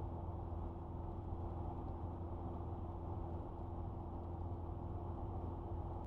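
Car driving slowly, heard from inside the cabin: a steady low drone of engine and tyre noise with a faint humming tone above it.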